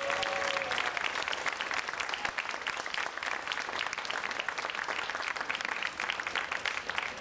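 Crowd applauding, many people clapping steadily.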